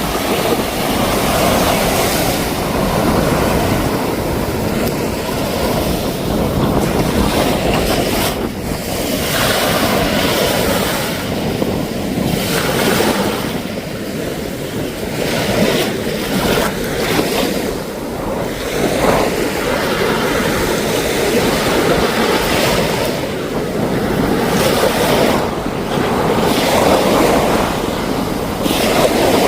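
Sea waves washing on the shore, with wind buffeting the microphone; the rushing noise swells and eases every few seconds.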